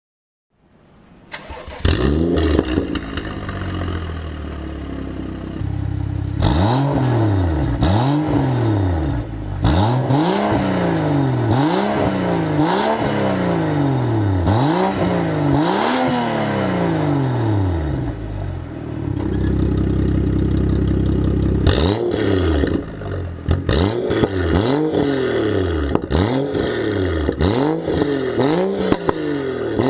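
BMW N55 3.0-litre turbocharged inline-six starting up and settling to idle, then revved again and again in quick blips with sharp pops as the revs fall. It idles briefly, then the blipping resumes near the end.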